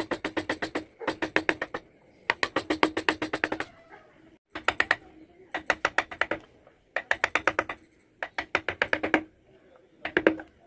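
Wood-carving chisel being tapped rapidly into the wood with a small mallet, about ten sharp knocks a second in bursts of about a second with short pauses between.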